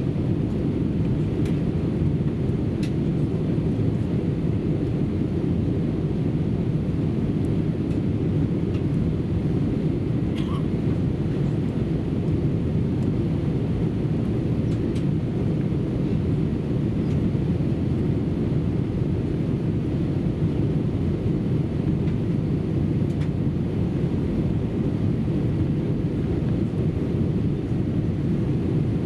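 Steady cabin drone of an Airbus A319 airliner in flight, heard from a window seat: a low, even rumble of engine and airflow noise on descent toward landing.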